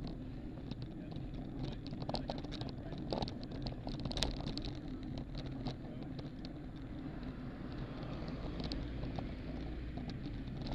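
Steady wind and tyre noise from a road bike riding along, with scattered light clicks and ticks. A car approaches near the end.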